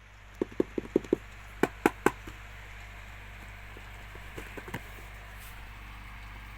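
Mini table fan being handled: a quick run of five light clicks, then three louder knocks about a fifth of a second apart, and a few faint taps later, over a steady hum.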